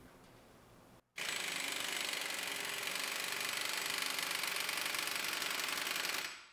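Thor air impact wrench hammering a bolt in reverse through a hollow drum socket made of welded steel pipe, a rapid, even hammering that starts about a second in, runs for about five seconds and stops.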